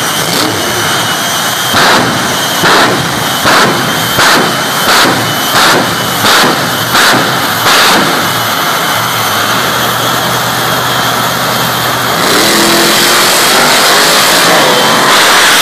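Jet-powered semi truck blasting flames, a sharp whoomp about once a second over the steady roar of its jet engines. About twelve seconds in, the roar grows louder and an engine note rises in pitch.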